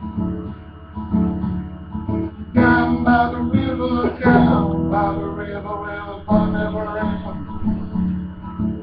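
Acoustic guitar strummed in a steady rhythm, with louder strummed chords about two and a half, four and six seconds in.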